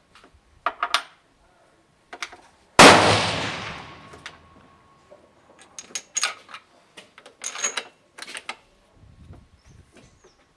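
A single .308 Winchester rifle shot from a Tikka T3 Varmint about three seconds in, loud and sharp, its echo dying away over a second or so. Several short clicks and clacks come before and after it.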